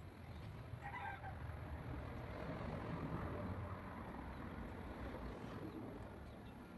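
A chicken calls briefly about a second in. Then a rush of noise swells and fades over a few seconds above a low, steady rumble.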